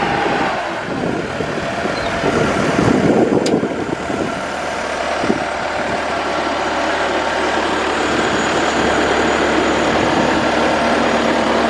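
Diesel engine of a Bobcat 864 tracked skid steer running. It is uneven for the first few seconds, with a brief sharp click about three and a half seconds in, then settles to a steady idle.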